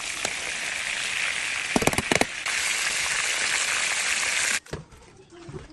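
Chicken frying in hot oil: a steady sizzle with crackles and spits. A few quick sharp knocks come about two seconds in, and the sizzle cuts off suddenly near the end.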